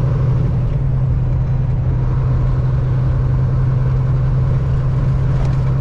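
Tractor-trailer's diesel engine running steadily under way, a continuous low drone.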